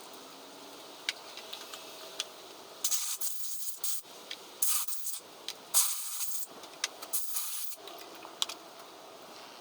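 About five short bursts of hissing spray from a pressurised nozzle, starting about three seconds in, over a steady background hiss.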